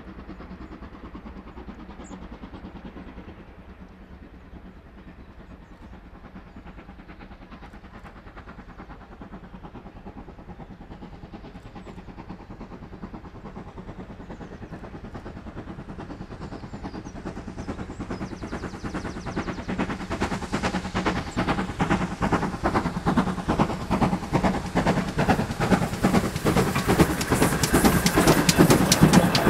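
Steam-hauled train approaching, growing steadily louder over the second half, with a fast, regular beat that becomes strong in the last third.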